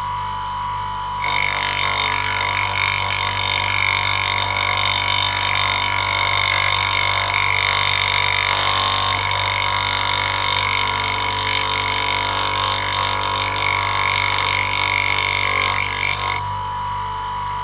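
Grinding wheel running with a steady hum. About a second in, a steel lathe tool bit held in the motorized sharpening jig meets the wheel and grinds steadily with a harsh, high-pitched hiss. The grinding stops about a second before the end, leaving the wheel's hum.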